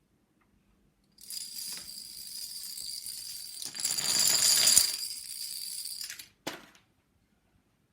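High-pitched metallic jingling shimmer that swells louder about halfway through and stops suddenly, followed by a short single hit.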